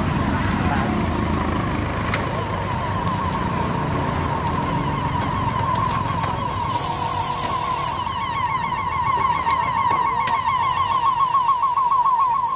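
The grill's motor-driven chain-and-sprocket drive running with a high-pitched squeal that wavers rapidly, several times a second, louder in the last few seconds. A low rumbling noise lies under it in the first half.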